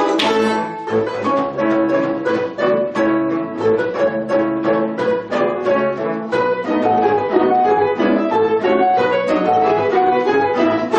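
Balalaika ensemble playing a folk potpourri: many balalaikas plucking and strumming together in quick repeated notes.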